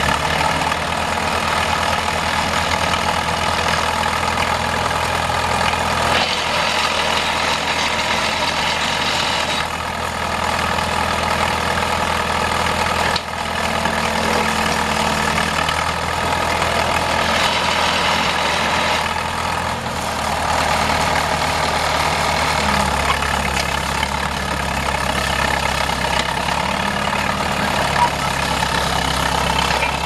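Diesel engine of an old crawler dozer running steadily as the machine creeps along, its note shifting a few times as engine speed changes.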